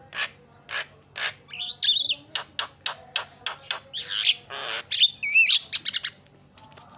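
Javan myna (jalak kebo) chattering: a rapid run of short, rasping notes, broken twice by wavering whistles.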